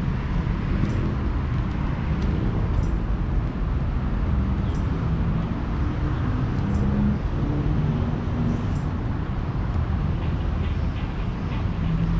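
Steady rumble of road traffic passing over a nearby bridge, with a faint high chirp about every two seconds.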